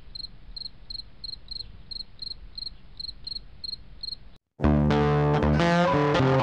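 A cricket chirping steadily, about three short high chirps a second, over a low hum. It cuts off suddenly about four seconds in, and loud guitar music starts a moment later.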